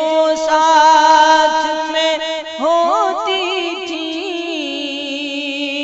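A singer's voice drawing out a long wordless melismatic phrase of an Urdu marsiya (a mourning elegy), the held note wavering and sliding through ornaments, with a quick run of repeated rising slides about halfway through.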